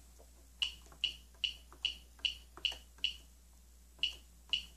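Cricut Personal Cutter keypad buttons pressed in quick succession, a shift key and then a letter key for each capital letter. Each press gives a short click with a brief high beep: about eight in the first three seconds, then two more near the end.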